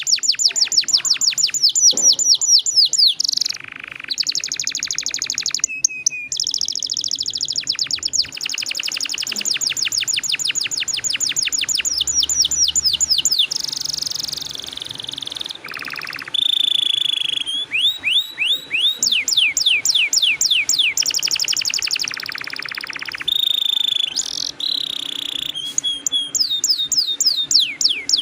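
Domestic canary singing long rolling trills: fast runs of one repeated note, each held for a few seconds before the bird switches to a new roll at a different pitch.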